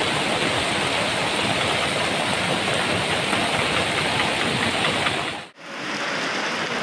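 Fast-flowing muddy floodwater giving a steady, loud rush. The sound cuts out for a moment about five and a half seconds in, then resumes.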